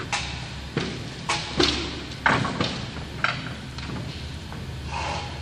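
A few sharp knocks and thumps as a canvas-and-mesh sneaker is handled against the shoe platen of a heat press, over a low steady hum.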